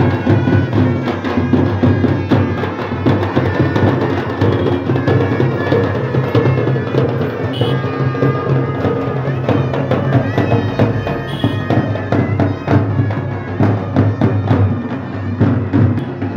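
Outdoor procession band music: reed wind instruments play a sustained, droning melody over steady, continuous drumming.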